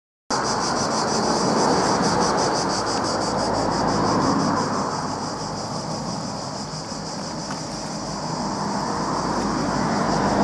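Cicadas shrilling in a steady, rapidly pulsing high chorus, over a low rushing noise that swells and eases every few seconds.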